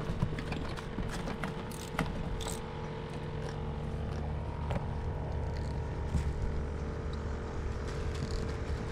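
A boat's motor running steadily with a low hum, with scattered light clicks and knocks.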